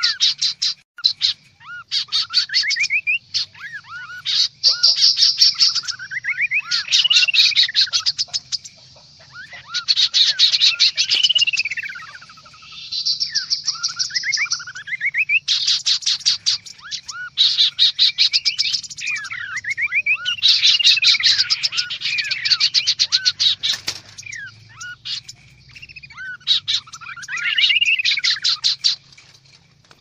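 Kaso-kaso birds (chestnut-capped babblers) calling noisily: repeated rapid rattling trills traded with rising-and-falling whistled notes, the busy chatter used as a lure recording for trapping these birds.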